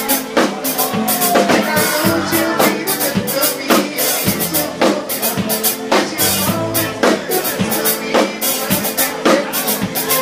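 Live band playing: electric guitar over a drum kit keeping a steady beat.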